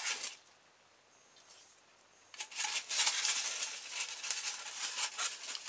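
Hands handling and rubbing a polystyrene foam slab: a dense, scratchy rustling that starts a little over two seconds in, after a short sound at the start and a quiet gap.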